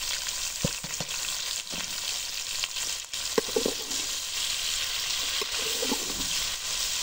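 Chicken and sliced onions sizzling in hot ghee in a metal karahi, a steady hiss, while a steel ladle stirs them and clinks against the pan now and then.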